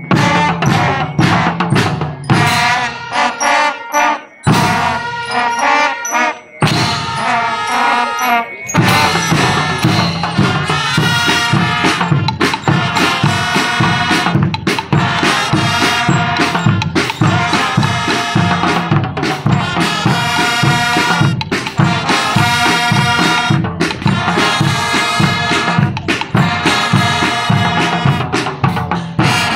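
Student marching band playing brass and drums, stopping short a few times in the first eight seconds or so, then playing on steadily to a regular beat.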